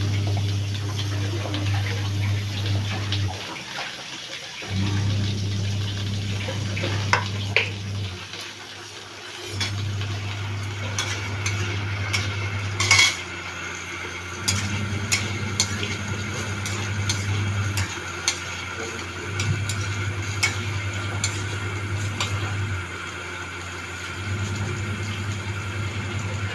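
A metal spatula scraping and clinking against an aluminium kadai as potatoes and okra are stirred and fried, with sharp clinks coming thick from about ten seconds in. Under it a low hum switches on for a few seconds and off for about a second, over and over.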